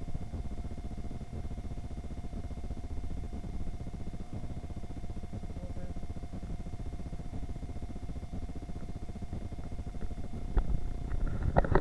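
Shopping cart being pushed along a supermarket aisle: a steady low rumble from its rolling wheels under a faint steady hum, with clicking and rattling near the end.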